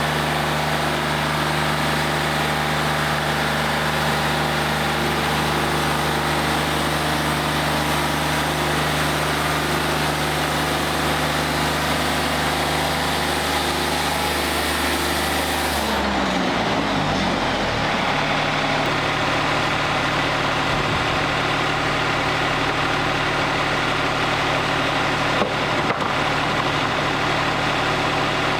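Wood-Mizer LT40 Wide portable bandsaw sawmill running steadily. About halfway through its engine note dips and shifts, then settles into a steady run again, and a couple of sharp knocks come near the end.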